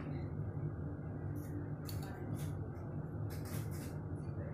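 Several short scratchy rustles and scrapes as a glass olive-oil bottle is handled and tipped over a glass salad bowl, over a steady low hum.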